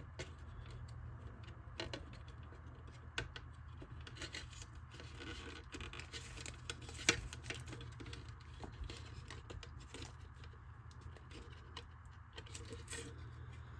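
Small hard plastic parts being handled and pressed together, a taillight lens being worked into the tab holes of a hard plastic RC body: scattered light clicks, taps and scrapes, with one sharper click about seven seconds in, over a steady low hum.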